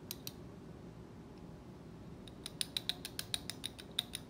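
Glass test tubes and metal tube caps being handled while two broth cultures are mixed: a couple of light clicks, then from about halfway a rapid run of sharp light clicks, several a second, as glass and metal knock together.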